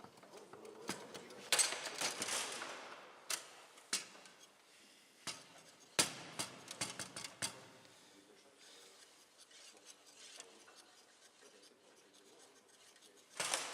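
Foosball play on a Bonzini table: sharp clacks of the ball being struck by the player figures and knocking against the table, coming in quick flurries, then quieter over the last few seconds.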